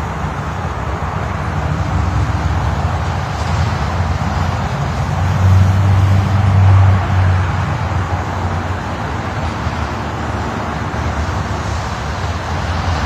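Steady low outdoor rumble with a hiss above it, swelling louder about five to seven seconds in.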